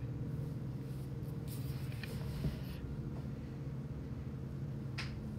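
Quiet room tone with a steady low hum, broken by faint rustling and a soft tap about halfway through, and another faint rustle near the end.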